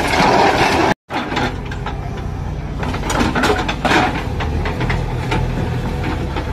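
JCB backhoe loader's diesel engine running steadily, with repeated knocks and clatter of bricks and rubble as the bucket works the demolished walls. The sound cuts out for a moment about a second in.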